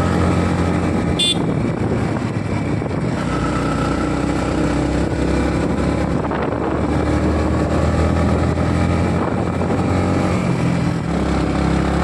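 Yamaha MT-15's single-cylinder engine running as the motorcycle rides at low speed, slowing and shifting down from third to second gear. A short, sharp tick comes about a second in.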